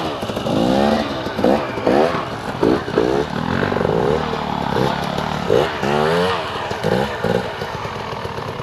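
Dirt bike engine revved in about a dozen quick bursts, its pitch climbing and dropping with each twist of the throttle. It settles to a steadier, lower running near the end.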